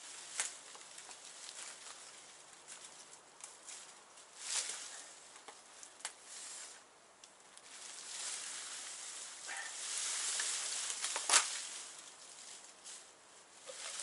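Irregular rustling and scraping of tree branches and leaves being cut up and handled by hand, with a few small clicks and one sharp knock about eleven seconds in.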